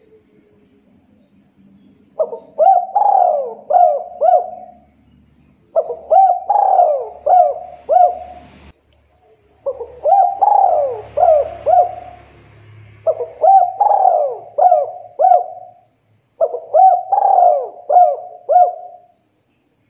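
Spotted dove (tekukur) cooing: five phrases about a second apart, each a quick run of four or five coos.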